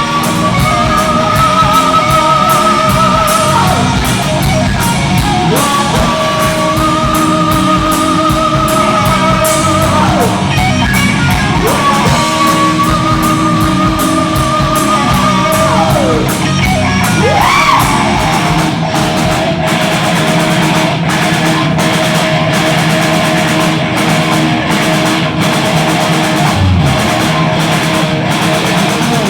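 Live hard-rock band playing: electric guitar holds long wavering notes with several string bends, over bass and drum kit. About two thirds of the way through it settles into a steady riff with regular drum hits.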